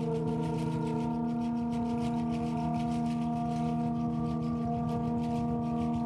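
Music: a sustained droning chord of several steady, held tones, with faint quick ticking above it.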